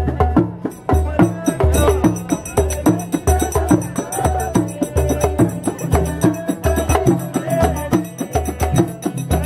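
Live street music: a banjo plucked in quick runs over a hand drum beating a steady, repeating rhythm.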